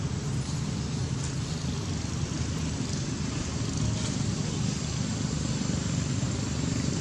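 Steady low-pitched outdoor background rumble, with a faint steady high whine over it.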